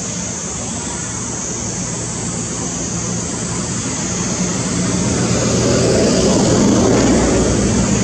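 A steady engine drone that grows louder from about four seconds in and peaks near seven seconds, over a steady high hiss.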